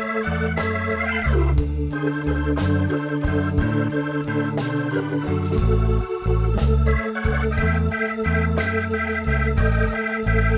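Background music led by a Hammond-style organ holding chords over a bass line with a steady beat; one organ note slides down in pitch about a second in.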